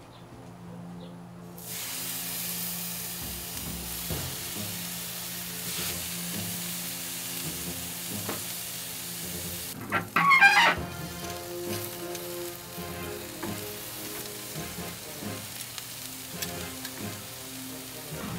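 Fish fillets and vegetable skewers sizzling on a hot grill: a steady hiss that starts about two seconds in. A brief louder sound comes about ten seconds in.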